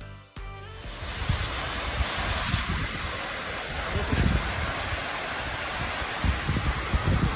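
Music stops, and then a steady rushing noise begins, with gusty low rumbling from wind buffeting the microphone.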